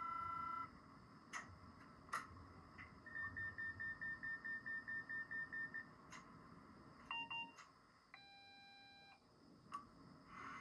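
Electronic beeps and chimes from an HO model train's sound decoder. A short multi-tone beep comes first, then a few sharp clicks and a run of rapid high beeps at about five a second. Near the end there is a brief two-tone signal and a held chord-like chime.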